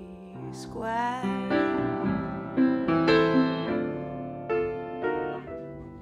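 A woman's voice holds one sung word with vibrato over upright piano about a second in, then the upright piano plays a short solo phrase of chords, about two a second, growing softer near the end.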